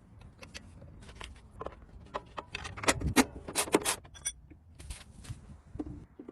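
Small metal parts clicking and clinking as they are handled, with a cluster of louder clinks about three seconds in and a short metallic ring just after.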